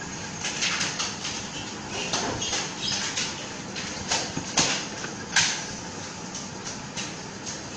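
Hands working wires at the end of an LED tube light: irregular rustling, scraping and small clicks of wire and plastic being handled, with a couple of sharper clicks about four and a half and five and a half seconds in.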